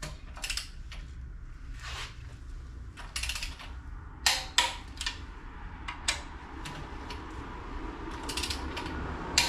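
Click-type torque wrench ratcheting and clicking on cylinder head bolts, tightening them to 40 lb-ft. Sharp clicks come in short bunches at irregular intervals.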